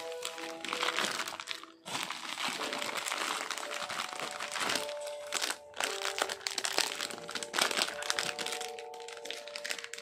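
Plastic packaging crinkling and crackling as a foil-lined mailer bag and a clear zip bag are handled and pulled open, over music with long held notes.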